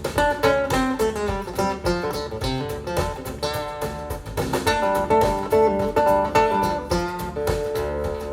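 Acoustic guitar music of quick, plucked and strummed notes, played back over Focal Grande Utopia EM hi-fi loudspeakers and heard in the room.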